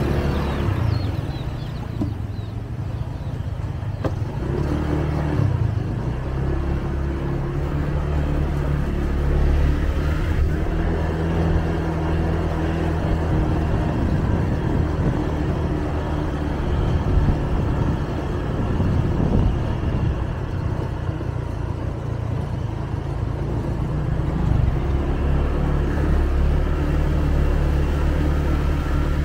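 Motor scooter's small engine running while riding along at a fairly steady speed, its pitch shifting slightly a few times, over a steady rush of road and wind noise.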